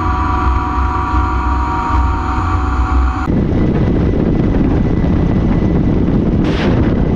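Ka-52 Alligator attack helicopter in flight. A steady turbine whine runs over the low throb of its coaxial rotors, then after a cut about three seconds in there is a rough rush of rotor and wind noise, with a brief hiss near the end.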